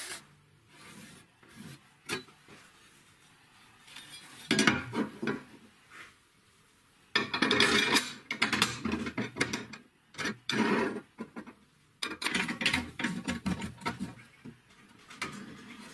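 Steel pieces handled on a steel plate: several bursts of metal-on-metal clinking and scraping, separated by short pauses.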